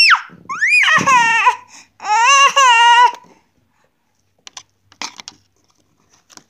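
A young child's high-pitched squeals, sliding up and down in pitch, then a drawn-out wavering wail, together lasting about three seconds. After that only a few faint taps and rustles.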